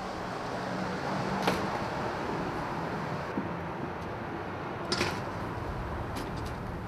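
Steady outdoor street background noise, with two sharp clicks, one about a second and a half in and one near five seconds.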